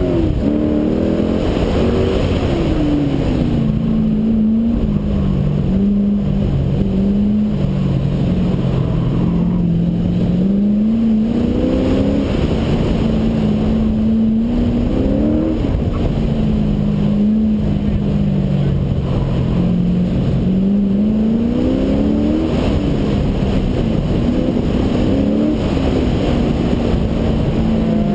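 Chevrolet C5 Corvette Z06's LS6 V8 engine under hard acceleration on an autocross run. The revs climb and fall back repeatedly between bursts of throttle and lifts for corners.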